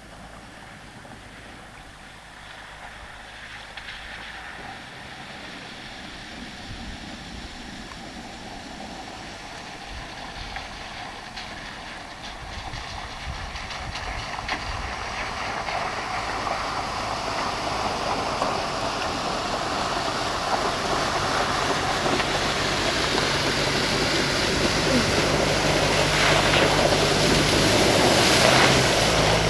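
Toyota pickup truck driving through a shallow stream bed, its engine drone and the splashing of water under its tyres growing steadily louder as it approaches.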